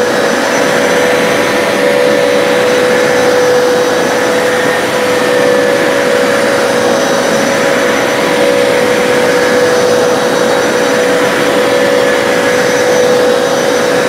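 Hoover PowerDash Pet and Power Scrub XL upright carpet cleaners running in suction-only mode, pulling water back out of the rug. Their motors make a steady, even drone with a constant hum.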